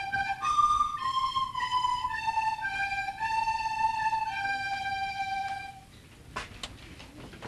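High woodwinds playing a slow melody in unison, one held note after another, the last held longest before the music stops about six seconds in; a couple of soft knocks follow.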